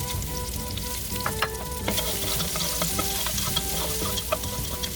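Crushed garlic sizzling in hot oil in a pan, with the scattered clicks of a utensil stirring it against the pan.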